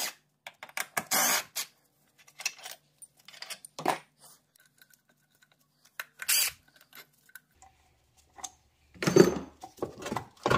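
Metal tools and loose bolts clinking and knocking while the engine mount bolts are removed: scattered short clanks and rattles, the loudest about nine seconds in, with a faint low hum coming in past the middle.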